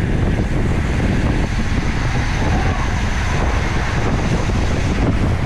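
Wind buffeting the microphone of a camera on a road-racing bicycle at speed: a steady, loud low rumble with a hiss over it.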